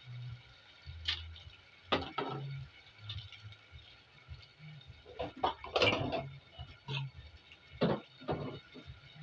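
A spoon knocking and scraping against cookware while mixing in a pot: a few separate knocks, with a cluster about halfway through.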